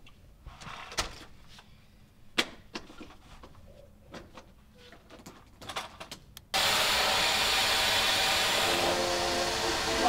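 A vacuum cleaner switches on at the wall socket about six and a half seconds in and runs with a loud, steady whoosh, after a few seconds of light clicks and knocks from handling it.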